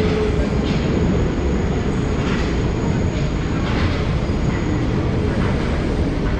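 Paris Métro MF 77 steel-wheeled train approaching and running into an underground station: a steady rumble of steel wheels on the rails.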